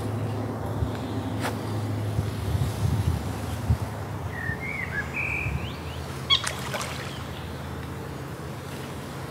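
Lakeside ambience: a steady low hum with a bird chirping a few short notes near the middle, and a few sharp clicks about six seconds in.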